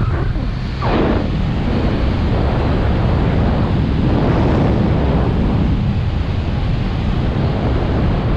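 Wind buffeting the microphone of a camera moving along a road: a loud, steady rush, with a brief falling whoosh about a second in.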